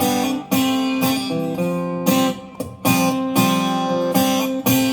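Acoustic guitar strumming chords between sung lines, each chord ringing on between strums, with no vocals.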